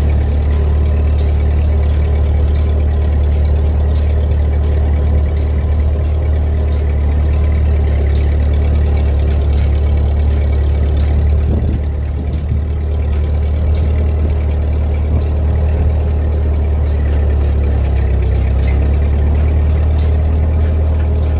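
Old tractor engine running steadily with a heavy low drone, pulling an old rake that adds a faint, regular clicking roughly once a second.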